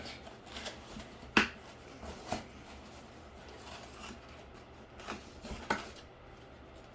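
Cardboard being handled and pulled apart by hand: faint rustling with a few sharp taps and clicks, the loudest about a second and a half in.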